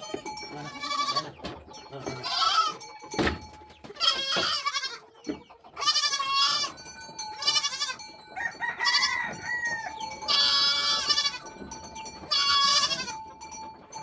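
Goats bleating over and over, about seven wavering calls from the herd, one lower than the rest near the middle. A single sharp knock about three seconds in.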